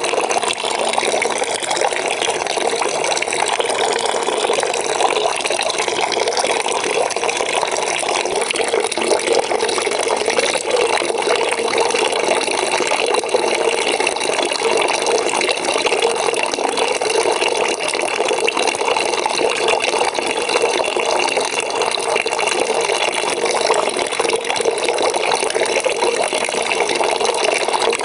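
A water bucket filling from a running tap, a steady, unbroken rush and splash of water.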